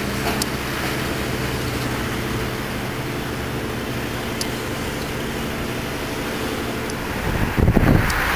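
Steady street-traffic noise with a constant low engine hum. About seven seconds in, wind starts buffeting the microphone over louder traffic.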